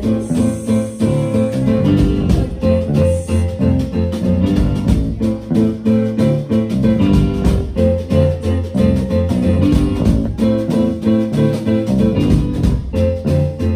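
Live band music: electric guitar, bass guitar, a Roland Juno-DS keyboard and drums playing together in a steady rhythmic groove.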